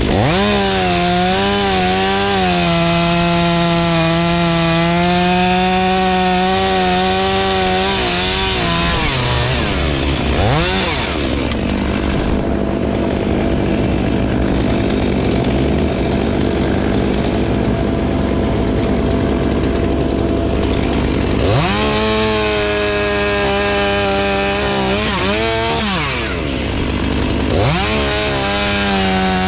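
Chainsaw revving to full throttle and held there for several seconds, its pitch wavering and sagging a little as it cuts wood, then dropping back to a low run. It revs up high again about two-thirds of the way through, dips briefly, and revs once more near the end.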